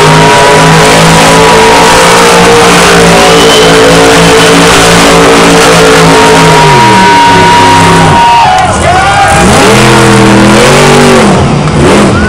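Monster truck engine held at a steady high rev for about six seconds, then dropping, then blipped up and down several times. Loud enough to overload the recording.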